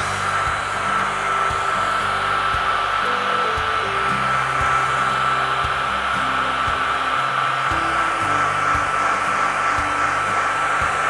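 Handheld hair dryer blowing steadily, a rush of air with a steady high whine, drying a fresh misting of airbrushed paint.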